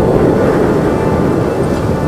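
Loud, deep rumble like rolling thunder, slowly fading.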